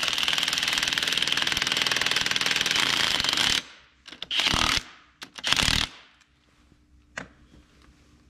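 Power ratchet spinning a bolt down: a fast, continuous rattle for about three and a half seconds, then two short bursts about a second apart, and a single click near the end.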